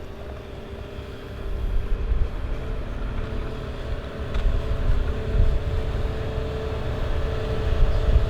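A vehicle engine running with a low rumble, growing louder about a second and a half in.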